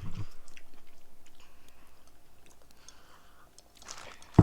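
A person chewing a mouthful of milk chocolate from a giant Hershey's Kiss, with small wet mouth clicks that grow fainter. A sharp click comes near the end.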